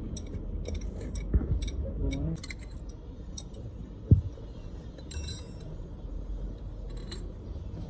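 Metal tools and parts clinking against each other during a heavy gear rebuild, with scattered sharp clinks and two dull knocks, the louder about four seconds in, over a steady low workshop hum.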